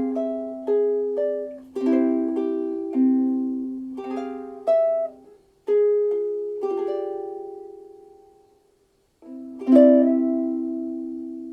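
Soprano ukulele with a solid African mahogany Ditson-style body, played as a sequence of plucked notes and chords that ring and fade. The playing stops briefly about three-quarters of the way through, then one last chord is struck and left ringing out.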